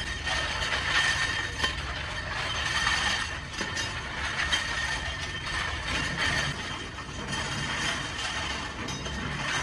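Steel rotavator blades tumbling inside a rotating perforated steel drum: a continuous metallic clatter and clanking of many blades striking each other and the drum wall, swelling and easing unevenly as the load turns over.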